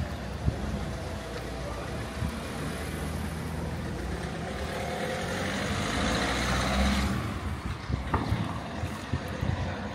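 Steady motor vehicle noise: a low engine hum with rushing noise that swells about six seconds in and drops away sharply around seven seconds, followed by a few light clicks.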